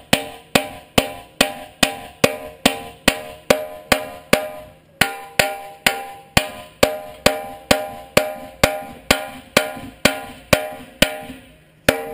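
Hammer striking a steel excavator bucket tooth to drive it onto its shank: a steady run of ringing metal-on-metal blows, about two a second, with a short pause about four and a half seconds in.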